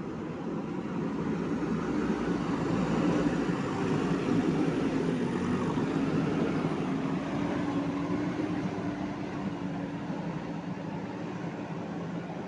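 JCB 3DX backhoe loader's four-cylinder diesel engine working under load. The engine note rises and grows louder about two seconds in, holds, then eases off gradually toward the end.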